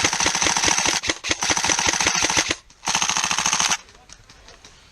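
Airsoft guns firing rapid strings of shots: a long string, a short break about two and a half seconds in, another string ending a little before four seconds in, then fainter scattered shots.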